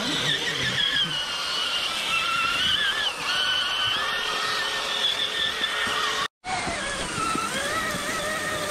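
Electric drive motors and geared transmissions of RC rock-crawler trucks whining, the pitch wandering up and down with the throttle as they climb. The sound drops out for a moment about six seconds in, then the whine resumes at a different pitch.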